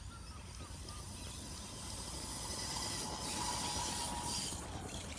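Small electric radio-controlled car running across grass: a hiss and faint motor whine swell midway and fade, over a steady wind rumble on the microphone, with a few faint bird chirps early on.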